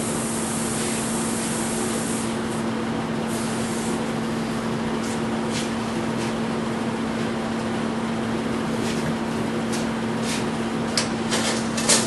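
Lit brazing torch flame giving a steady hiss, with a steady low hum underneath. A few light clicks of handling come near the end.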